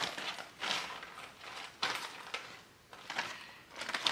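Plastic wrapping and a clear plastic case being handled: a string of short rustles and crinkles, with a few light knocks as items are picked up and moved.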